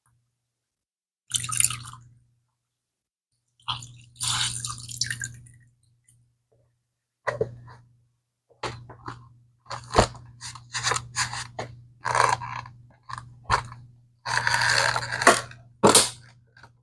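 Brush scrubbing a leather bag with soap: a few separate wet strokes starting about a second in, then a run of quick short strokes from about halfway, with a longer scrub near the end.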